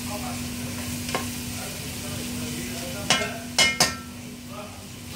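Chopped eggplant sizzling as it fries in a pan while being stirred, with a utensil knocking against the pan once about a second in and three times in quick succession about three seconds in.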